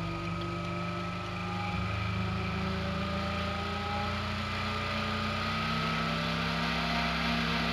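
A 12 cm PC case fan running with a steady hum and a faint whine, both slowly rising in pitch and getting a little louder as the fan speeds up.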